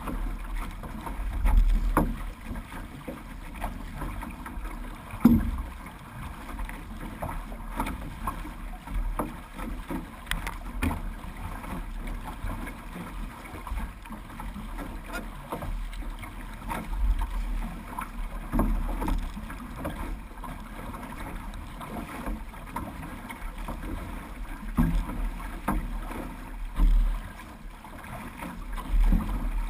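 Water splashing and sloshing along the hull of a six-person outrigger canoe (OC6) as the crew paddles, over a low rumble. Irregular knocks and thumps come through, the loudest about five seconds in.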